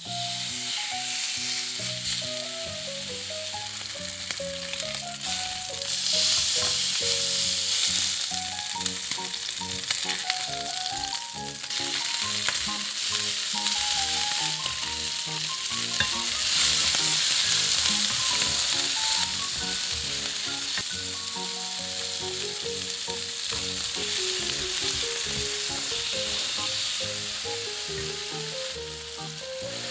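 Pork belly sizzling as it fries in a hot frying pan, rendering its own fat, with utensils stirring and turning the meat. A light melodic background tune plays underneath.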